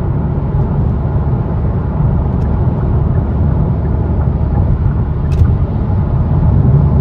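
Hyundai i30N's 2.0-litre turbocharged four-cylinder and its custom part-straight-piped exhaust, heard from inside the cabin at motorway speed with road noise: a steady low drone that grows a little louder toward the end as the car speeds up to 70 mph.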